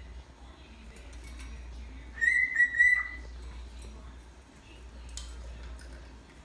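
Pet parrot whistling a quick run of three or four clear notes about two seconds in, lasting about a second, followed by faint chirps and clicks.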